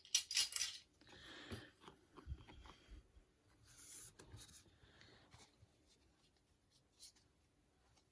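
Trading cards and their packaging being handled: short bursts of rustling and sliding that thin out to a few small ticks in the last few seconds.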